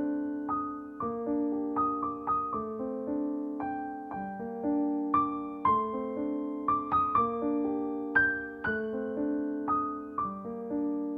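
Background piano music: a slow melody of single struck notes, about two a second, over held lower notes.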